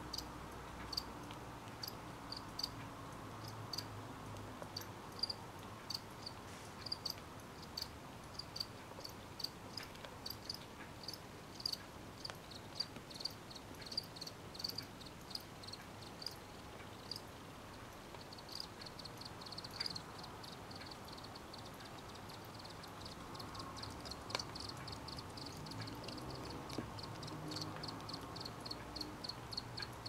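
Crickets chirping in short, high, repeated pulses, about two a second, with a faster, denser run of chirping setting in after about eighteen seconds.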